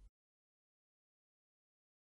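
Silence: the soundtrack is blank, with no sound at all.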